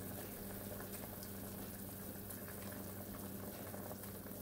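Chicken stew with carrots and potatoes bubbling at a steady, gentle simmer in a stainless steel pot.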